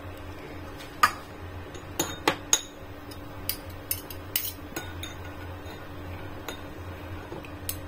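A metal spoon clinking irregularly against a small ceramic bowl while stirring a soy-based sauce, about a dozen light clinks, over a low steady hum.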